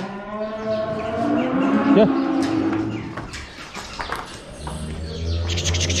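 Cattle mooing: long, drawn-out calls one after another through the first three seconds or so.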